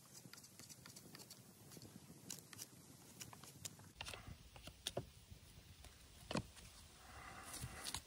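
Faint knife-on-wood whittling: a knife blade shaving a pale wooden stick to a point for a skewer. Small irregular scrapes and clicks come several a second, a few sharper ones around the middle, and a longer rasping scrape near the end.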